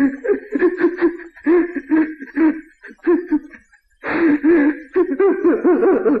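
A man sobbing in halting, convulsive bursts of voice, breaking down as he loses control of his emotions. The sobs come in short gasping runs with brief pauses, becoming more continuous and intense about two-thirds of the way in.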